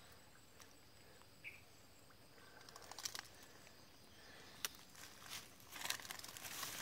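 Woven bamboo fish trap being handled, giving light clicks and short rustles that start about three seconds in and grow busier toward the end. A faint steady high insect drone is heard underneath.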